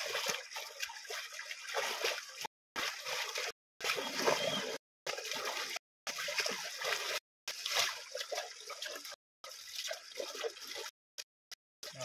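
Hands splashing and churning shallow stream water in uneven surges, broken by several brief moments where the sound cuts out completely.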